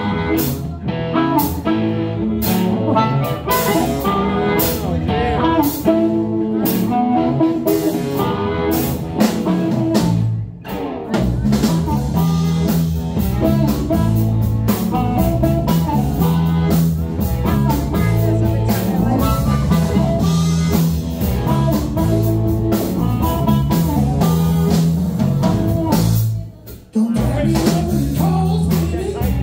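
Live blues band playing: electric guitar, electric bass, drum kit and amplified harmonica. The band briefly drops out about ten seconds in and again near the end.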